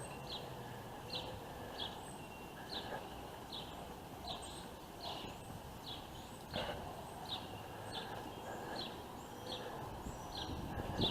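A bird calling with a short, high chirp repeated steadily, about two a second, over faint outdoor background noise.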